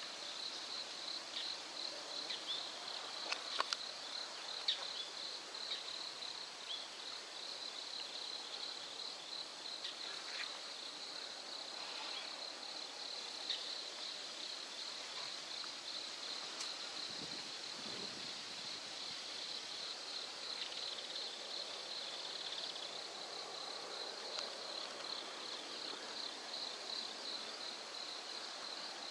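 Crickets chirring in a steady high trill over faint outdoor background noise, with a few brief ticks in the first few seconds.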